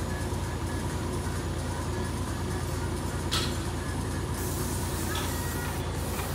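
Steady low drone of machinery running on a paint job. A sharp click comes a little past three seconds in, and a high hiss starts at about four seconds, fitting an airless paint sprayer's gun spraying.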